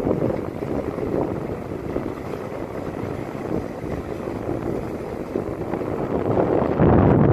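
Wind rushing over the microphone during a downhill ride, with the low rumble of wheels rolling on asphalt; the rush swells louder near the end.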